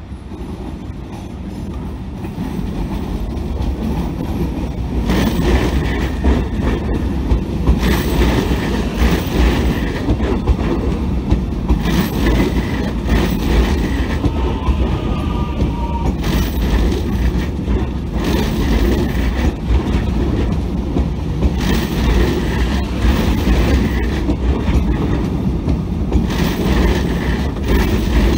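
X'Trapolis 100 electric suburban train approaching and then rolling slowly past close by. A rumble grows over the first few seconds and then holds steady, with a clatter of wheels on rails every couple of seconds.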